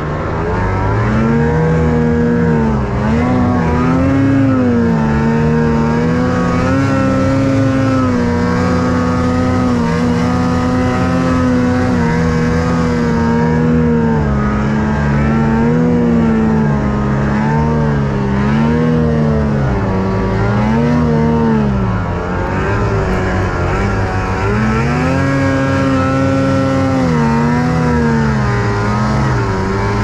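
Snowmobile engine running hard under load in deep powder snow, its pitch repeatedly dipping and climbing back every second or two as the throttle is worked.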